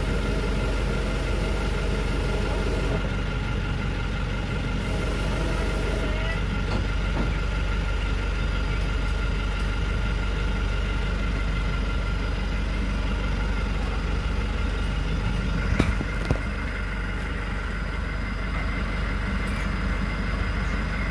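Old truck's diesel engine running steadily. About two-thirds of the way through there are two sharp knocks.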